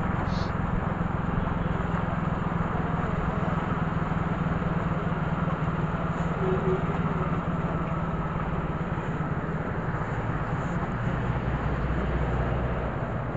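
Engine of a moving two-wheeler running steadily, with wind and road noise on the microphone; the engine note drops lower near the end.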